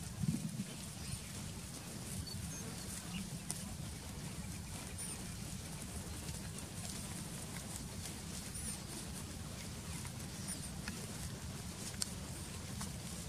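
Goats grazing close by: small clicks and tearing of grass being cropped over a steady low rumble, with a brief bump just after the start and a few faint high chirps.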